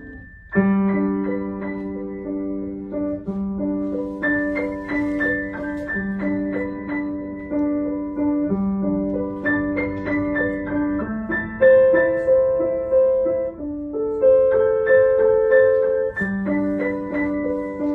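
Steinway grand piano played solo: a melody over a repeating accompaniment figure, with a low note struck and held every two to three seconds. The playing picks up again after a short break about half a second in.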